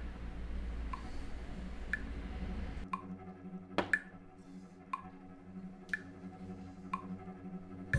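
A clock ticking about once a second, the ticks alternating higher and lower in a tick-tock pattern. A sharper click comes a little before four seconds in, as a wooden chess piece is set down on the board.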